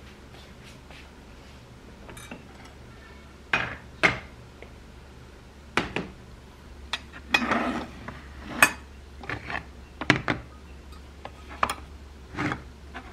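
Dishes and utensils handled in a kitchen: a series of separate clinks and knocks as things are set down, with a short scrape about halfway through.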